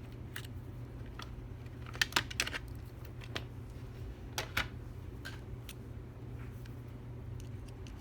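Scattered light metallic clicks and taps of small Allen wrenches being picked through and fitted to the padlock's screw, a few in quick succession about two seconds in and again about four and a half seconds in, over a steady low hum.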